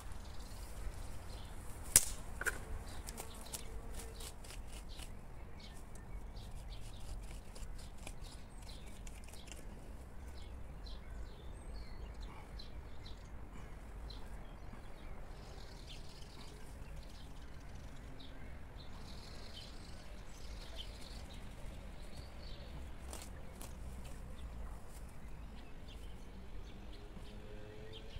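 Quiet garden ambience: a steady low rumble with scattered small clicks and rustles from hands working in grass and soil, and faint bird chirps. One sharp knock comes about two seconds in.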